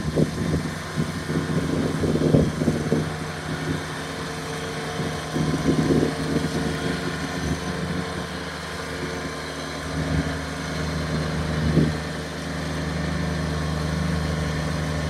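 Kubota BX sub-compact tractor's three-cylinder diesel engine running steadily while the belly mower deck cuts grass, with a few brief swells in loudness.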